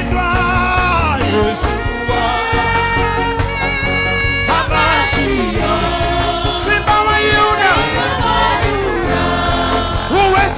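Live gospel worship music: a band plays under sung, gliding vocal lines, with steady bass and drums.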